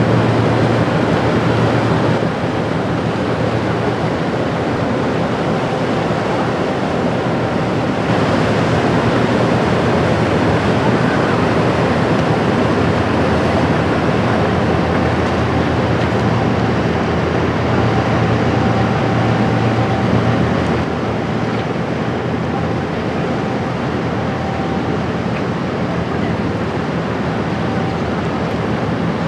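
Steady rush of river water and wind, with the low drone of the passing motor tanker Concentus's diesel engine underneath.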